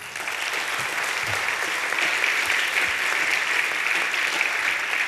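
Audience applauding, a steady clapping that tails off just after the end.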